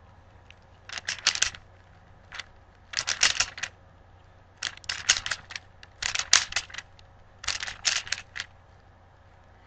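A plastic 3x3 Rubik's cube being twisted by hand: five quick runs of clicking layer turns, each about half a second long, a second or so apart.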